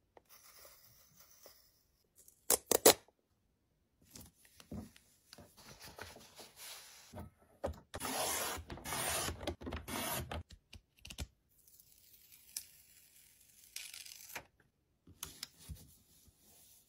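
Handling sounds of packing: a few sharp snaps, then the blade of a sliding paper trimmer scraping as it cuts through a sheet of paper stickers. The cut is the loudest part, a rough, dense scrape lasting about two and a half seconds. Softer paper rustles follow.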